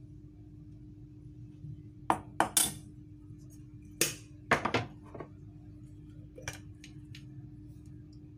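Metal spoon clinking and scraping against a stainless steel mixing bowl as cornstarch is spooned onto the flour: a few sharp clinks about two seconds in, more around four to five seconds, and a lighter tap later.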